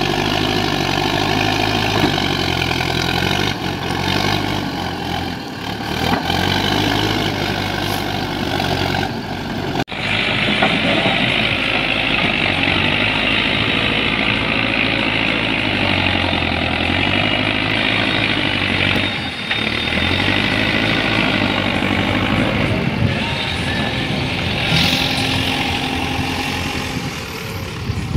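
Diesel engine of a Mahindra Earthmaster SX backhoe loader running while its front bucket works a pile of earth and stones, its engine note dipping and recovering a few times as the load changes.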